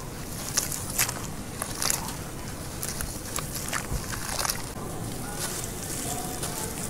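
Hands squeezing and crumbling wet sand-and-cement paste in a tub of water: irregular crackles and crunches. A steady low rumble runs underneath.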